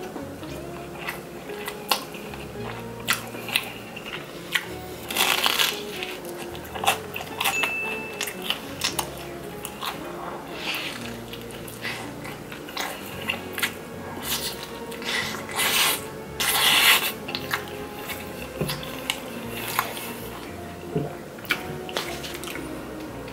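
Close-up eating of Chicago deep-dish pizza: crunchy bites into the crispy crust and chewing, in irregular crackling clusters, over soft background music.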